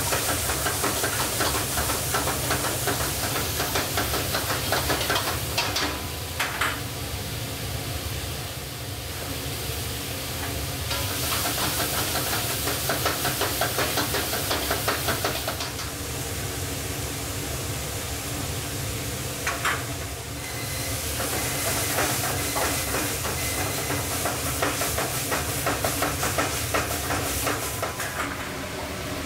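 Stir-fry in a wok over a high gas flame: the food sizzles and hisses hard in three loud stretches while a ladle scrapes and tosses it in quick strokes, easing off in between. A couple of sharp ladle knocks on the wok fall in the quieter gaps, over a steady low rumble.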